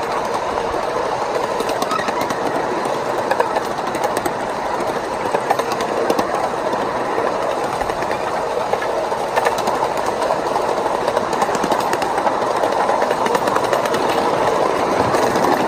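1-inch-scale ridable miniature train rolling along its track: a steady run of steel wheels on rail, with short clicks scattered through it.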